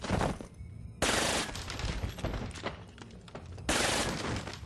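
Gunfire in a film soundtrack: three loud bursts of rapid shots, one at the start, one about a second in and one near the end, with scattered single cracks between them.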